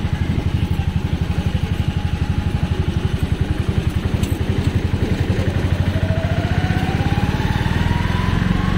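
Small motor vehicle's engine running with a fast, even throb. A rising whine comes in about six seconds in.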